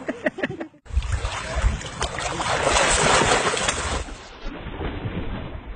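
Water splashing as dogs go off a wooden dock into a lake, with wind rumbling on the microphone.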